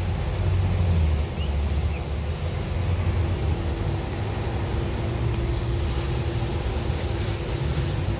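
LVS-97K articulated tram running along the track, heard from inside the passenger saloon: a steady low rumble of wheels on rails and running gear, with a steady motor hum that grows stronger in the second half.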